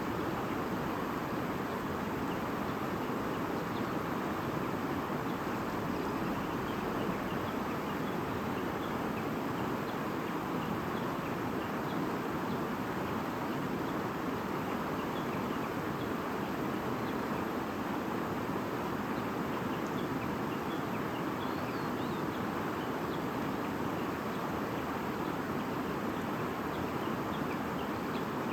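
Shallow stream babbling steadily, with faint scattered bird chirps over it.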